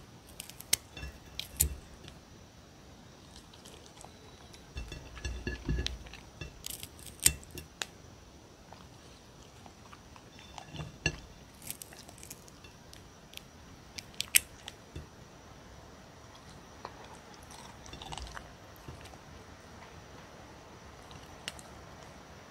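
A puppy crunching and chewing pieces of cucumber fed from the hand, in irregular bursts of crisp bites with short pauses between.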